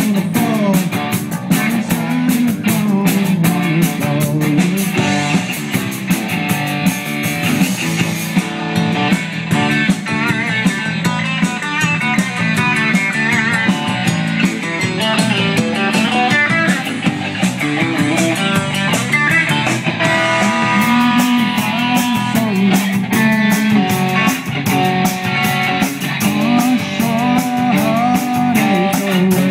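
Live rock band playing: electric guitar and bass guitar over a drum kit, with cymbals throughout.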